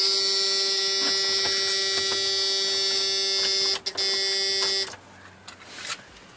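Steady electrical buzz in a Ford Super Duty pickup's cab, one pitched tone with many overtones. It breaks briefly with a couple of clicks just before four seconds in, comes back, then cuts off abruptly about five seconds in.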